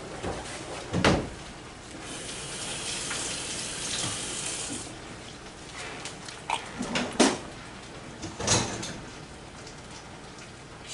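Water running from a kitchen tap for about three seconds, with a few sharp knocks and clinks before and after it.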